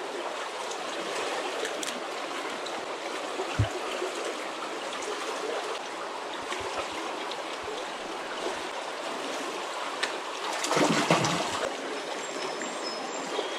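Shallow creek water flowing and riffling in a steady rush. There is a single low knock about four seconds in, and a brief louder sound near the end.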